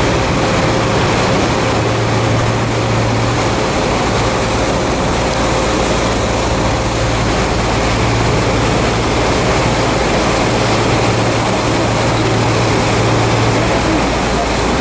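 Motorboat under way at steady speed: a low, even engine hum under a loud, constant rush of wind and water.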